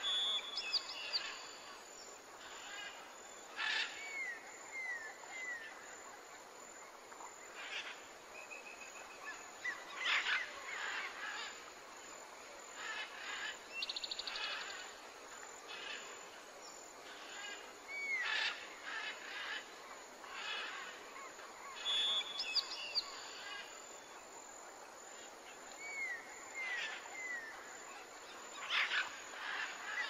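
Mixed forest birdsong: several birds chirping and whistling, with short descending whistled notes and a brief high trill, over steady background noise. The same run of calls comes round again about twenty seconds later.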